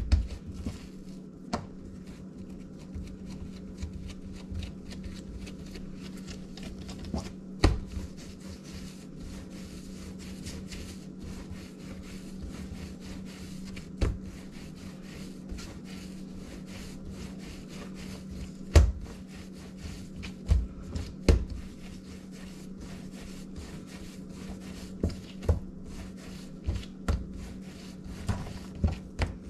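Hands pressing and rolling bread dough on a silicone baking mat: soft rubbing with scattered thumps, more frequent near the end, over a steady low hum.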